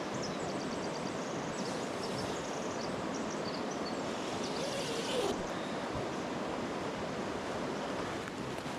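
River water flowing steadily, an even rushing noise, with a few faint high chirps over it in the first few seconds.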